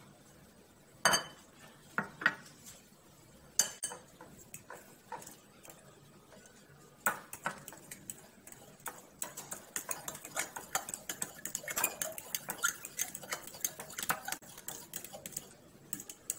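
A metal spoon beating eggs into mashed banana in a ceramic bowl. A few separate clinks against the bowl come first, then from about halfway on the spoon clinks rapidly and steadily against the sides as the mixture is beaten.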